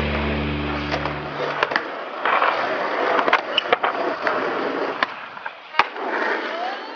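Skateboard wheels rolling on pavement, broken by several sharp clacks of the board popping and landing. A music track cuts off about a second in.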